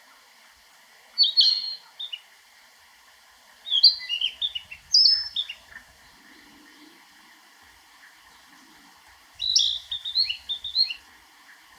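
Male Narcissus flycatcher singing: three short phrases of clear whistled notes that jump up and down in pitch, about a second in, around four seconds in, and near the end.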